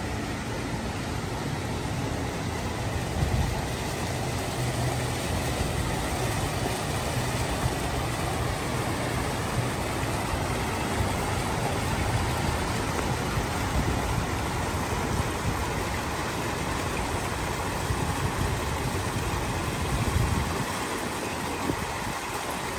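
A steady low rumble of traffic under the continuous splash of a fountain's water falling into its pool. The rumble eases near the end.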